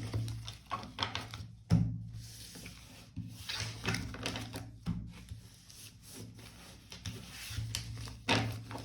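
Tarot cards being handled on a table, gathered and shuffled by hand: irregular rubbing and rustling with light taps, over a faint low hum.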